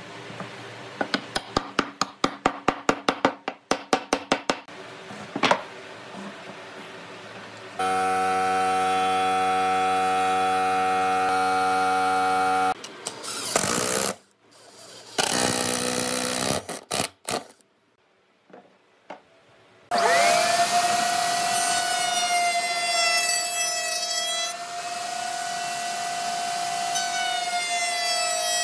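Woodworking tools in a string of short workshop clips. First a quick run of sharp knocks, about four a second. Then a machine motor runs at a steady pitch for several seconds and stops suddenly, and from about two-thirds of the way in a loud, steady, high whine with wavering overtones runs on.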